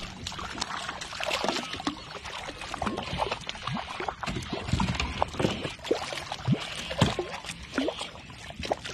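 Water splashing and trickling right beside a kayak hull as a small hooked fish thrashes at the surface and is handled with a fish gripper, with scattered small knocks and clicks throughout.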